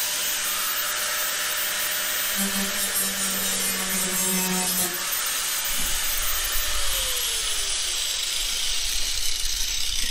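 Corded angle grinder with a cutting disc cutting into a ride-on mower's plastic engine hood: a steady high rasping hiss with the motor's hum, whose note comes and goes and sags in pitch once as the disc bites in.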